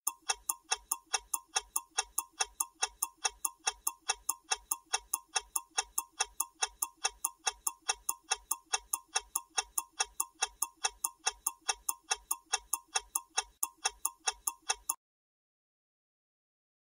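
Countdown timer sound effect: a clock-like tick repeating evenly about four times a second, stopping abruptly near the end.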